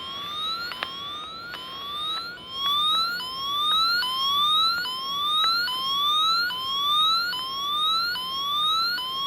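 An electronic tone from a device, sweeping upward and snapping back over and over, a little more than once a second, like a small siren or alert.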